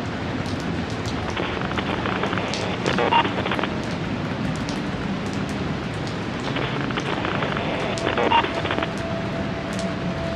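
Steady rain falling, with scattered drop clicks throughout. Two short, louder bursts of noise come about five seconds apart, near the start and about two-thirds of the way in.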